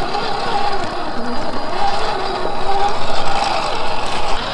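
A 1/10-scale RC rock crawler's electric motor and gear drivetrain whining as it crawls over rough ground, the pitch rising and falling with the throttle.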